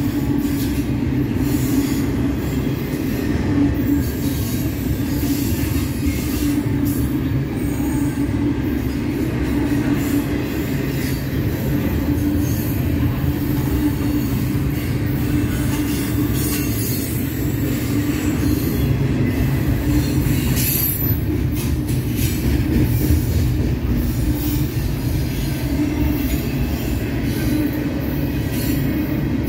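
Double-stack intermodal well cars rolling past at close range, a steady low rumble of wheels on rail with rattling from the cars. A brief high-pitched squeal about 20 seconds in, typical of wheel flanges rubbing the rail.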